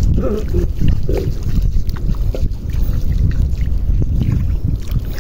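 Wind buffeting the microphone, with bare feet splashing through shallow water over the tidal flat.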